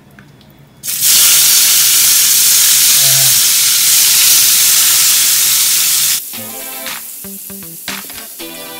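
Chopped tomatoes hitting hot oil in a frying pan: a loud sizzle starts suddenly about a second in as they go in and are stirred with a spatula. The sizzle cuts off abruptly near the end, and background music takes over.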